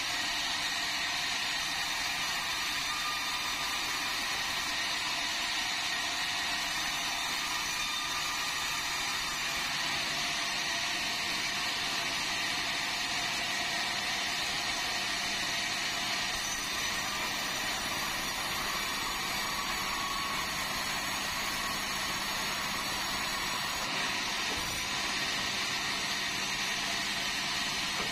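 Vertical band sawmill running steadily, its band blade sawing through meranti timber as the log and slab are fed through: a steady, even mechanical noise that does not let up.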